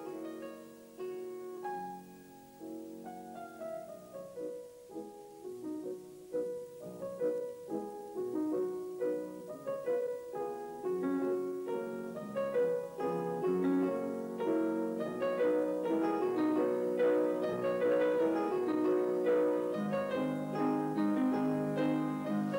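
Background piano music, a flowing run of quick notes that grows louder toward the end.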